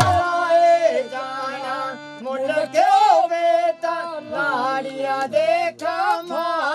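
Folk music: a singing voice carries a high melody with bends and held notes over a steady sustained accompaniment. The drumming stops right at the start.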